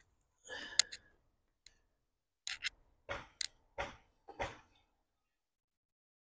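Steel shovel blade scraping and knocking in dry, sandy soil as earth is worked in around a tree's root ball. A rustling scrape comes first, then about five short scrapes roughly half a second apart.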